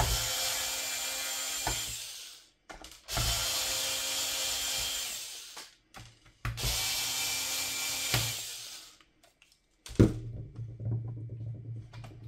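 Electric screwdriver running in three bursts of about two to three seconds each, each starting suddenly and fading out as it drives a laptop screw. A sharp knock about ten seconds in, then quieter low handling knocks.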